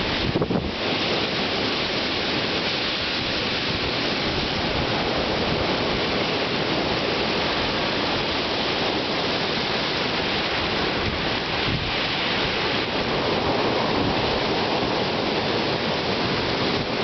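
Wind-driven rain: a steady, dense rushing hiss.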